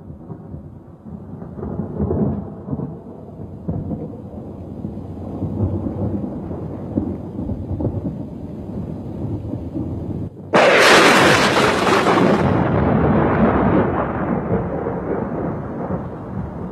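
Thunderstorm: low rolling thunder rumbling and swelling, then about ten seconds in a sudden, louder crash full of hiss that slowly fades.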